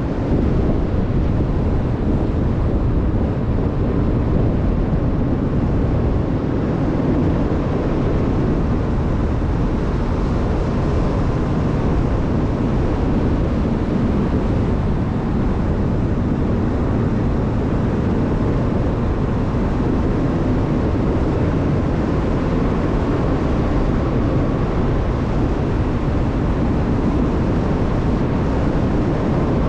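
A car driving steadily along a winding road, heard as an unbroken rumble of tyre and road noise mixed with wind on the camera's microphone.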